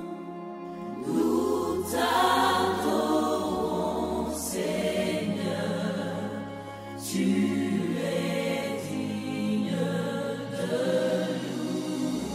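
Music: a choir singing held chords over a low bass note.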